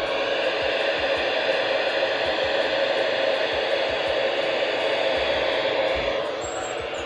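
Weather radio receiver giving out steady static hiss, the sign that its station, NOAA Weather Radio WXL58, is off the air. The hiss drops a little about six seconds in.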